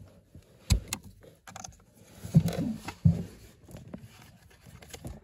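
Sharp knocks and clicks of hands and tools working a car's heater blower motor and its retaining ring loose under the dashboard, with a couple of low straining grunts near the middle.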